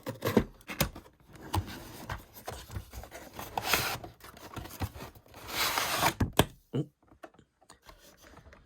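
A toy's retail box being opened by hand: scattered taps and clicks of the packaging, with two longer scraping rustles in the middle as the contents are pulled out.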